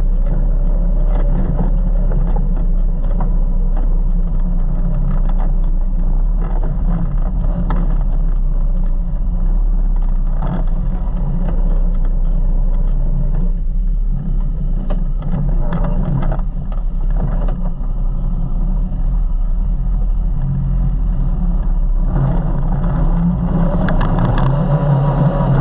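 Off-road vehicle's engine running steadily at low speed over rough ground, with scattered knocks and clatter. The engine grows louder in the last few seconds as it is given more throttle.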